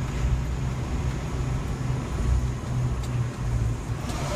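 Cab interior of a 2014 Spartan Gladiator fire engine under way: its diesel engine's low, steady hum mixed with road noise.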